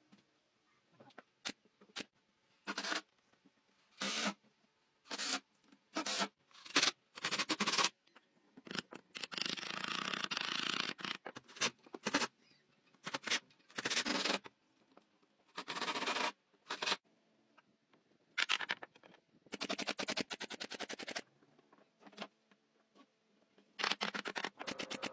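Makita cordless drill driving screws into pine rails in short runs of a second or two, mixed with sharp knocks and clatter of wooden boards being set in place.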